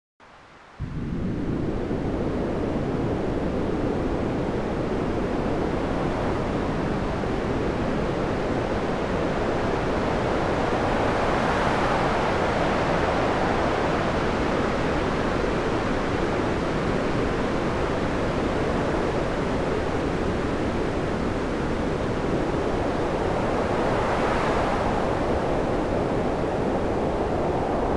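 Stormy sea: continuous rushing waves with wind. Two big swells rise and break, about twelve seconds apart.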